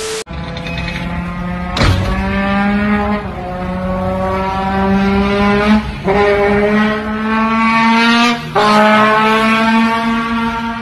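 Trombone played to imitate an engine accelerating through its gears: each note slides slowly upward for two to three seconds, then drops back and climbs again, several times over. A short burst of TV-style static opens it.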